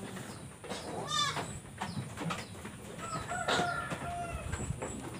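Farm animal calls: a short wavering call about a second in and a longer, steadier call from about three to four seconds, among scattered knocks and shuffling.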